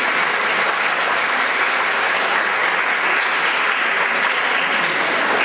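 Audience applauding steadily, many hands clapping together in a large gym hall.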